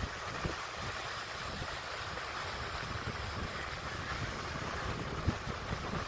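Ocean surf breaking and washing over a rocky shoreline, a steady rushing wash. Wind buffets the microphone with low, irregular rumbles and a sharper thump near the end.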